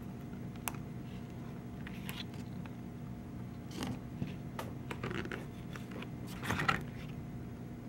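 Glossy photobook pages being turned and handled: scattered short paper rustles and flaps, the loudest about six and a half seconds in, over a steady low hum.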